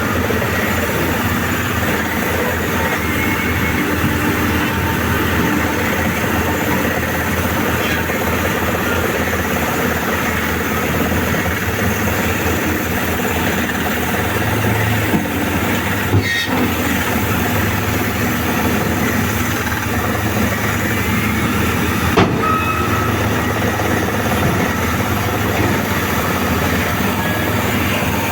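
Heavy diesel mining machinery running steadily, a face shovel excavator and ore dump truck at work, with a few brief knocks.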